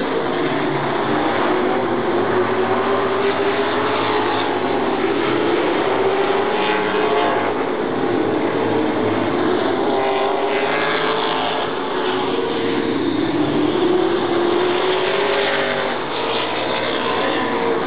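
Several stock car engines running around an oval track, their pitch rising and falling as the cars go past.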